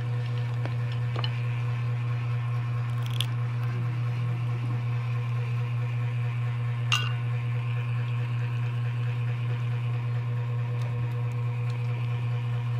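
Steady low background hum throughout, with a few faint sounds of people eating by hand and two sharp clicks, about three and seven seconds in.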